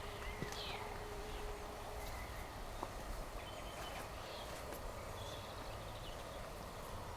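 Quiet garden ambience: a steady low rumble with a few short bird chirps and faint clicks, and a faint steady hum that stops about two seconds in.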